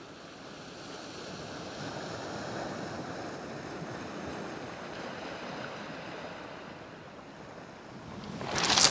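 Waves washing on a shingle beach, a steady rush that swells and eases. Near the end comes a sudden loud swish as a surf-casting rod is cast.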